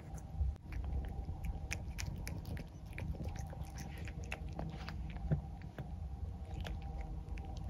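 A cat chewing and biting into a raw whole chick: irregular small clicks and crunches of teeth working through the chick's flesh and bones, over a low steady hum.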